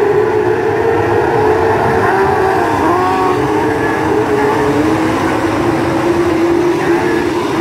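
A pack of TQ midget race cars racing past on a dirt speedway, many engines at once, their overlapping notes rising and falling as the drivers work the throttle through the bend.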